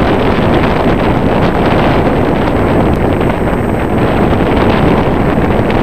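Wind buffeting the camera microphone: a loud, steady rushing rumble with no distinct events.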